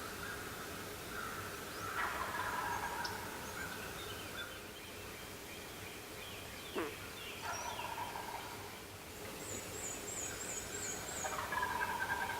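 A distant wild turkey gobbler gobbling several times, about a second in, in the middle, and again near the end. A small songbird trills briefly near the end.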